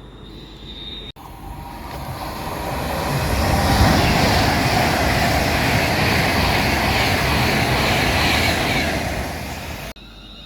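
A passenger train passing at speed, with a rushing noise that builds, holds steady for several seconds and then eases. The sound cuts in abruptly about a second in and cuts off abruptly near the end.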